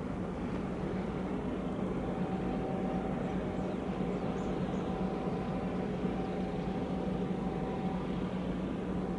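Steady mechanical drone: an even wash of noise under a constant low hum, with a fainter higher tone that comes in about two seconds in and drops out near the end.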